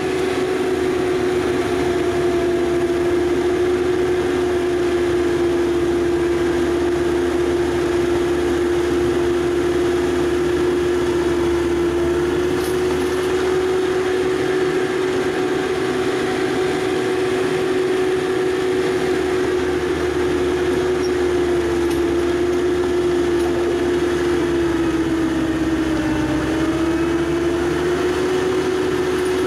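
ASV RC100 compact track loader at high, steady throttle driving its Erskine ES2410XL snowblower attachment while it blows snow: a loud, even machine drone with a steady pitch. The pitch sags briefly a few seconds before the end, then recovers.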